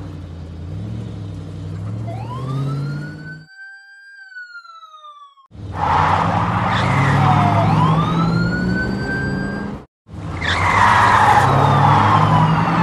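Police car siren wailing in slow rising and falling sweeps over a car engine revving, in three stretches broken by abrupt cuts; the siren sounds on its own for a moment between the first two.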